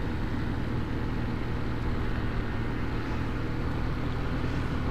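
Motor scooter engine running steadily at cruising speed, with wind and road noise from riding.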